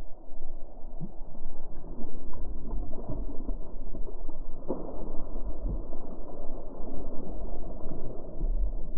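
A hooked blue catfish thrashing and splashing at the water's surface beside a kayak, in many irregular splashes with a stronger one about halfway through. The sound is muffled and deep, with no high tones in it.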